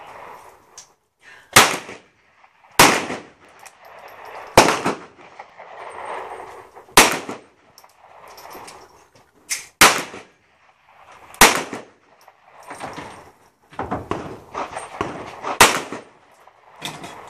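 Rimfire revolver firing single shots: about seven sharp cracks spaced unevenly, one to three seconds apart.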